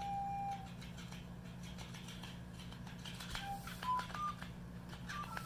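Boston terrier whining in thin, high single tones while mouthing a toy fish. One held whine opens, then comes a quiet stretch, and short whines step up in pitch near the end. A steady low hum runs underneath.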